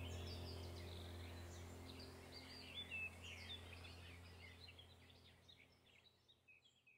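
Birds chirping with short, quick calls over a low steady hum, the whole fading out to near silence by the end.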